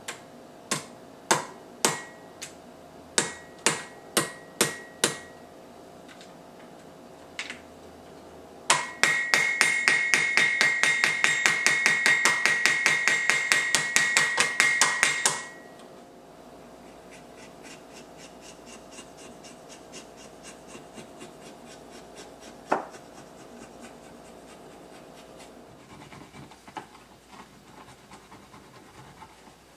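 Steel hammer setting copper rivets in a leather sheath: about nine separate blows, then a fast, even run of light ringing taps, about nine a second for some six seconds, peening the rivets over their burrs. One more single knock later, and faint rubbing near the end as the leather edge is worked by hand.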